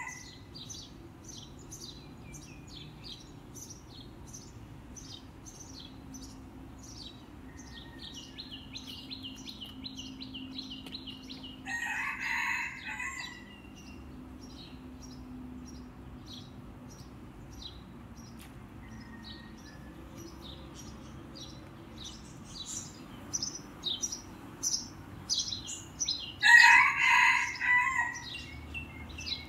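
A rooster crowing twice, about twelve seconds in and again near the end, over continual quick chirping of small birds that grows busier toward the end.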